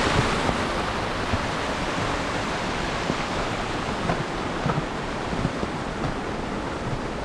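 Small mountain stream rushing and cascading over rocks, a steady watery rush that grows a little fainter toward the end.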